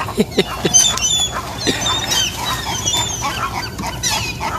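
Seabirds calling over one another: many short, high calls rising and falling, overlapping throughout, with a few lower sliding calls near the start.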